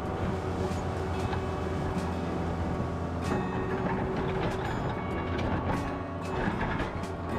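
Tractor engine running steadily while working dirt, with scattered clanks and knocks.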